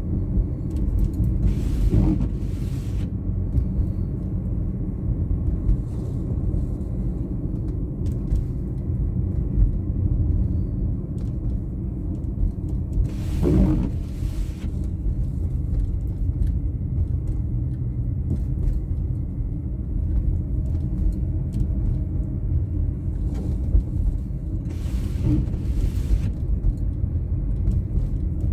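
A car running down the road with a steady low rumble of engine and tyre noise. A brief hissing swell comes three times, roughly every twelve seconds.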